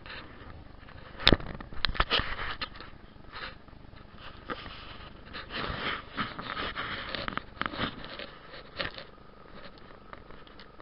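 Rustling and scraping close against the microphone of a small body-worn camera, with a few sharp knocks, the loudest about a second in.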